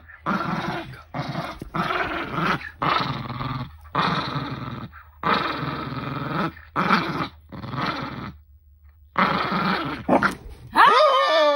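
Dogs growling in play while tugging on a rope toy: about ten rough growls with short pauses between them.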